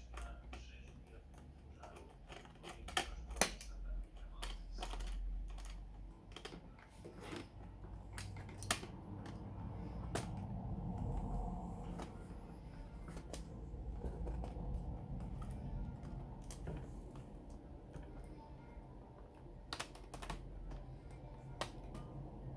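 Irregular light clicks and taps from handling small laptop parts and tools during disassembly, with a low steady hum underneath.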